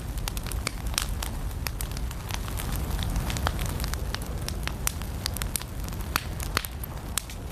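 Firewood burning in a fireplace, crackling with frequent, irregular sharp pops over a steady low rumble.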